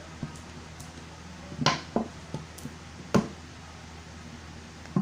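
A spoon knocking and clinking against the bowl as glue is poured and mixed for slime: a few sharp knocks in the middle, the loudest about two seconds in, among softer taps.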